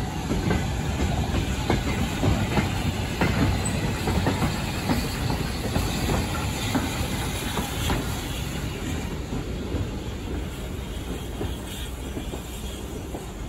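Small steam tank engine shunting goods wagons: the wagons roll and clatter over the rails with scattered short clicks and clanks. The sound slowly fades as the train moves away.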